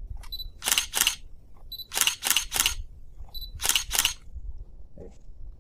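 Camera shutter firing three times. Each shot is a short high beep followed by a quick double or triple shutter click.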